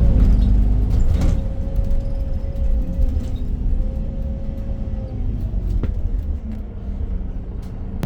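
Iveco Crossway Line 12 bus heard from on board while driving: a steady low engine and road rumble with a steady whine, and a few short rattles and clicks.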